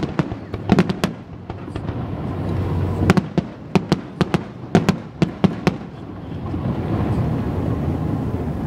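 Aerial fireworks bursting: a quick cluster of sharp bangs right at the start, then a longer run of sharp cracks from about three seconds in, stopping a little before six seconds. A steady low rumble sits under them throughout.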